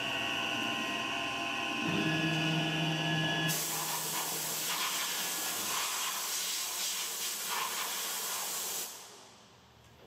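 MR-1 gantry CNC mill's end mill cutting aluminum under coolant mist, a steady whine. About three and a half seconds in, a compressed-air blow gun starts a strong steady hiss as it blasts chips and coolant off the part, and cuts off about nine seconds in.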